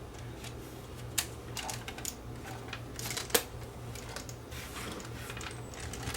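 Scattered small clicks and taps from a Panasonic PV-L750 VHS-C camcorder being handled, the sharpest about three and a half seconds in, over a steady low hum.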